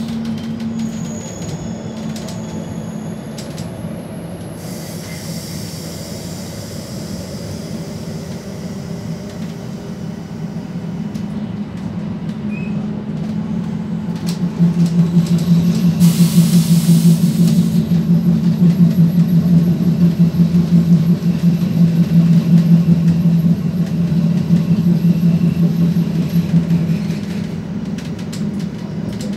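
Inside a Stadler Regio-Shuttle diesel railcar under way: a steady low engine drone mixed with wheel and track rumble. The drone grows louder about halfway through and drops back near the end.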